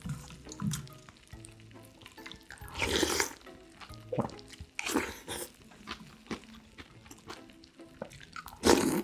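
Close-up eating sounds of acorn jelly in cold broth: three loud slurps of the broth, about three seconds in, about five seconds in and at the end, with quieter chewing and small wet clicks between them.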